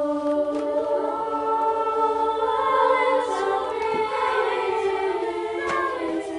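A choir singing together in held chords, the sound swelling a little in the middle and easing toward the end.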